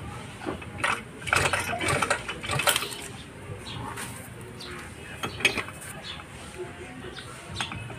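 Sharp metallic clinks and rattles of a socket wrench and its bar handle working the front drive pulley nut of a Suzuki Address scooter's CVT, in several separate clusters.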